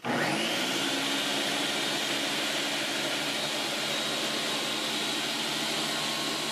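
Ninja 4-in-1 kitchen system motor base driving the spiralizer disc as a zucchini is pushed through it and cut into spaghetti-style strands. The motor spins up quickly at the start, then runs at a steady whine.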